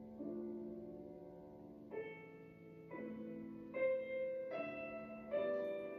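Soft, slow background piano music: sustained notes and chords, with a new one coming in about once a second in the second half.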